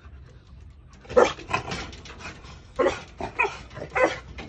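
A dog barking in two short bunches, about three barks starting a second in and about three more from near three seconds.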